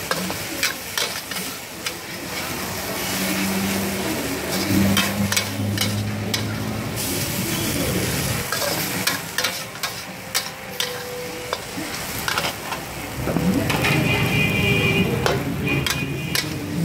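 Noodles and vegetables sizzling in a large wok while a metal spatula stirs and tosses them, with frequent scraping clanks of the spatula against the wok. A low hum swells in the background twice.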